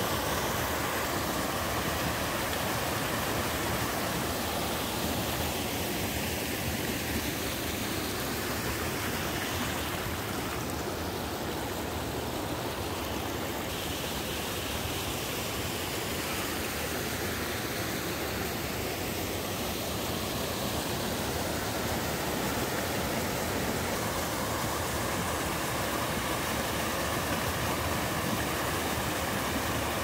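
Small mountain-stream waterfall cascading over boulders, giving a steady rushing of water whose tone shifts a little midway.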